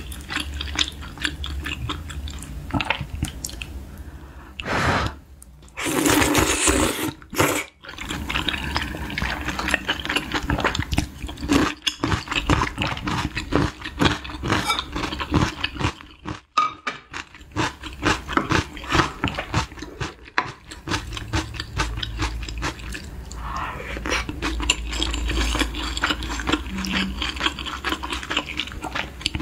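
Close-miked eating sounds from a spicy tripe hot pot with glass noodles: wet chewing, slurping and small clicks of wooden chopsticks against the metal pan, with a louder rush of slurping noise about five to seven seconds in.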